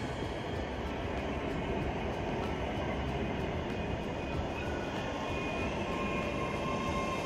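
A ScotRail electric multiple unit moving along the platform: a steady rumble of wheels and running gear as the coaches go by.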